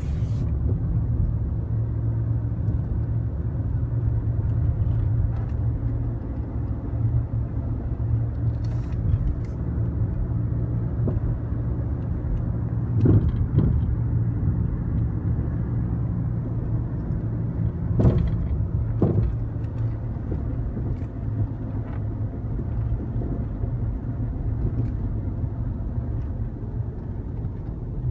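Steady low rumble of a car driving, engine and tyre noise heard from inside the cabin, with a few brief knocks partway through.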